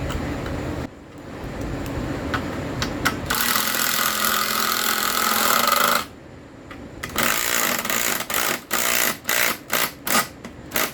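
A power tool running: one run of a couple of seconds, then a string of about eight short trigger bursts near the end.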